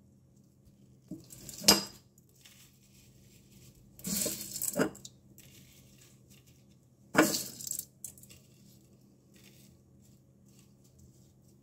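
Crispy fried onions crackling as handfuls are scooped from a metal strainer and laid on a platter, with light clinks of metal and dish: three short bursts, about two, four and seven seconds in.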